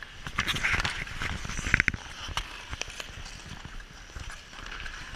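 Hockey stick blade clacking against the puck and ice during stickhandling, with skate blades scraping; a quick cluster of sharp clacks just under two seconds in is the loudest.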